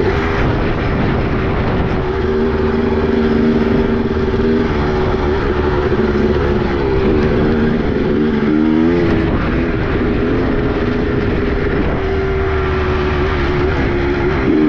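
Two-stroke dirt bike engine running at a steady pitch, wavering down and back up about eight to nine seconds in, then rising and falling as it revs near the end.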